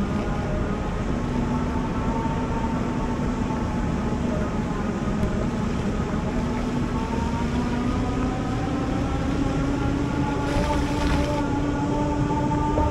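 Electric bike motor whining steadily, its pitch slowly rising, over a constant low rumble. A brief hiss comes about ten seconds in.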